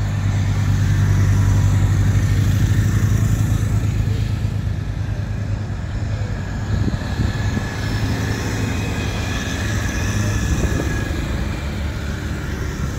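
Escort motorcycles and convoy cars driving past at steady speed. The engine hum is loudest in the first few seconds as a motorcycle goes close by, and more vehicles follow.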